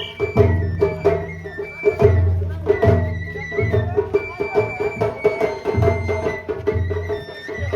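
Japanese festival ohayashi: taiko drums beating in a repeating rhythm with sharp clicking strokes, under a high bamboo-flute melody.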